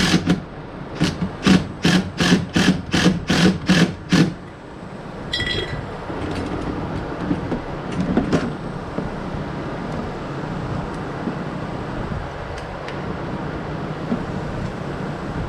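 Repeated sharp metallic strikes, about three a second for the first four seconds, from tightening stainless steel bolts into rivet nuts on an aluminium poling platform. After that only a steady low hum remains.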